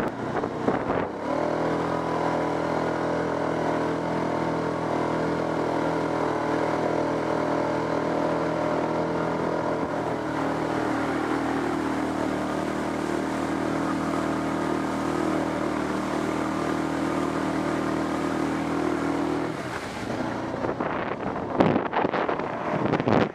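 ATV engine running at a steady, even pitch as the quad ploughs through standing water, with water spraying off the wheels. The engine sound drops away near the end, leaving rougher gusty noise.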